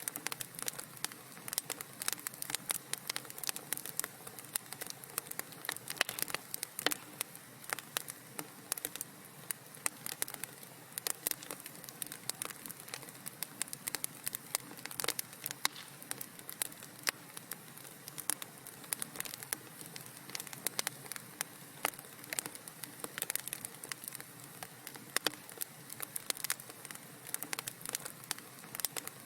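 Wood fire crackling in a fireplace: a soft steady hiss with frequent irregular pops and snaps.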